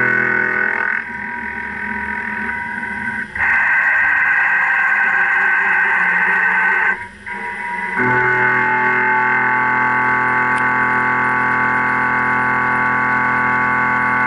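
Indexable carbide face mill cutting 4140 pre-hardened steel: a steady, loud, tonal whine of the cut. The sound turns harsher and noisier from about three seconds in, drops briefly near seven seconds, and settles back into the steady whine about eight seconds in as the cutter moves across the block.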